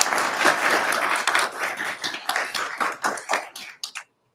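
Applause from a small seated audience of graduates, dense at first, thinning to a few scattered claps and stopping about four seconds in.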